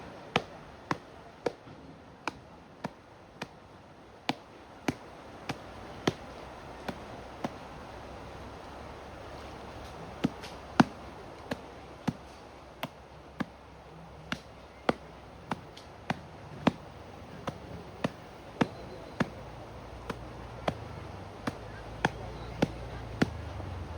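Sharp wooden clicks or knocks, about one to two a second in runs with a pause midway, over a faint trickle of water, on a bamboo raft. A low motor hum swells near the end.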